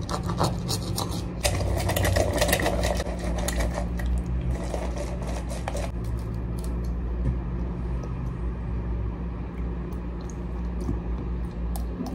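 An orange being squeezed on a plastic citrus juicer, with dense scraping and squishing in the first half, then an egg cracked over a plate with a few light clicks, over a steady low hum.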